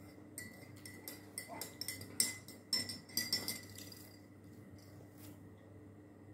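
Light clinks and clatter of tableware, with spoons, plates and ceramic coffee mugs knocking, in a quick run over the first three seconds or so, then quieter. A faint steady hum runs underneath.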